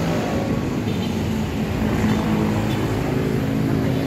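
Steady low hum of passing vehicles, with several low held tones.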